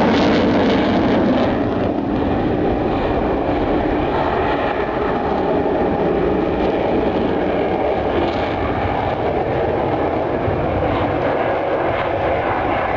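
F-16 fighter jet and Apache helicopter flying past together in a low flyby: a loud, steady roar of jet engine and rotor noise, loudest at the start.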